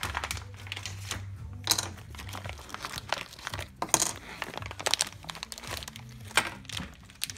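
Clear plastic zip bags of RC kit parts crinkling and rustling in irregular crackles as they are handled.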